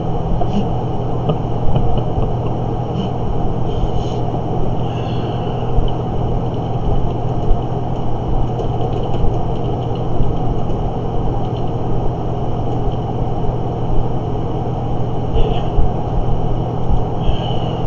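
Steady low rumble with a constant hum, and a few faint clicks.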